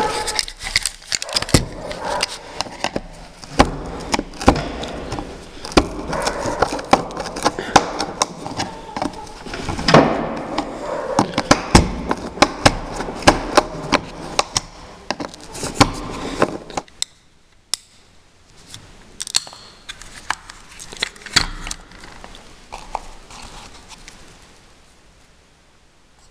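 Steel screwdriver blade scraping and prying inside a plastic circuit breaker housing, a dense run of scratchy clicks and scrapes as black debris is knocked out. After about 17 seconds it thins to occasional small clicks.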